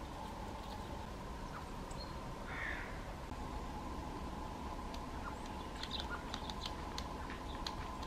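Middle spotted woodpeckers pecking at peanuts strung on a tree trunk: scattered sharp taps, busier in the second half. About two and a half seconds in, another bird gives one short, harsh call.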